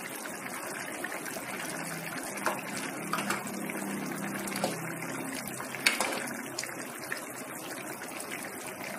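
Thick egg curry gravy simmering in a pan on a gas stove with a steady hiss. A steel ladle clinks against the pan a few times as the eggs are stirred in.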